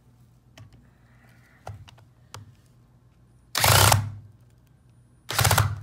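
Cordless hammer drill in drill mode, run in two short bursts of about half a second each while driving a 4-inch screw into pine, after a few light taps. The drill cannot sink the long screw.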